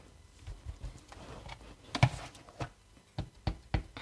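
A plastic ink pad snapping open with a sharp click, then a run of light taps, about three a second, as the pad is dabbed onto an acrylic-block stamp to ink it.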